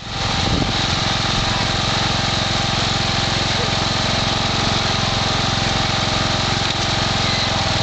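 Small engine of a John Deere-style ride-on lawn mower running steadily.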